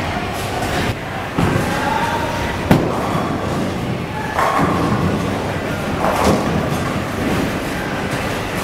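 Bowling ball crashing into a rack of tenpins about four and a half seconds in, the pins clattering as they scatter, amid the thuds and crashes of a busy bowling alley. A sharp single thud comes a little under three seconds in.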